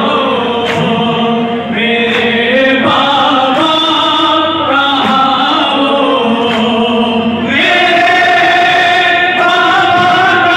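Several men chanting a noha, the Shia Muharram lament, in voices alone with no instruments, on long drawn-out notes. The singing grows fuller and louder about seven and a half seconds in.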